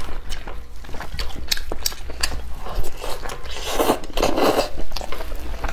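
Close-miked eating: a man biting, tearing and chewing chicken, with many short wet clicks and smacks and a louder noisy stretch about four seconds in.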